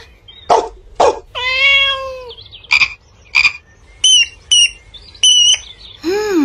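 Cartoon animal sound effects from a story recording: a single meow-like cat call about a second and a half in, then two frog 'ribbit' croaks, three short high chirps, and a falling tone near the end.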